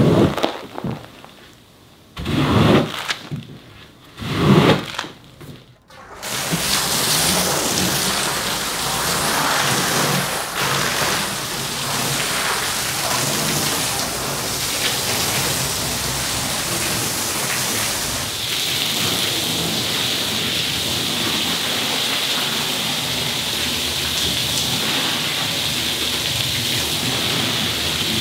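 A floor squeegee dragged across a soaked, foamy rug in three swishing strokes, pushing a wave of dirty wash water. About six seconds in, a rinse spray wand starts: a steady hiss of water spraying onto the rug and the wet floor, which turns brighter and hissier a little after halfway.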